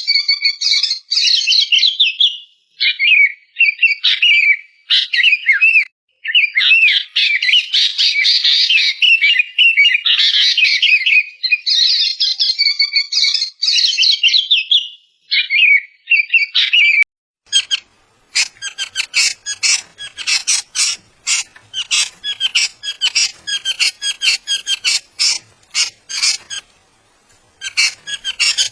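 Ashy bulbul calling: quick chattering, warbling notes for about the first seventeen seconds. Then comes a long run of harsh, rasping strokes, about two or three a second.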